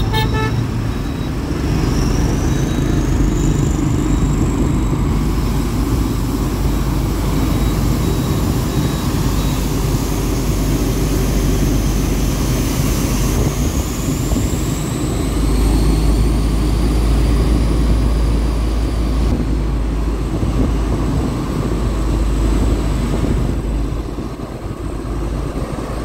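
Diesel locomotive engine running under way, a steady low rumble with a thin high whine that slowly rises and falls. The rumble grows heavier about halfway through.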